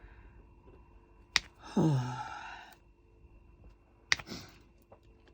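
A breathy sigh that falls in pitch about two seconds in, between two sharp clicks, one about a second in and one about four seconds in, with a softer breath after the second click.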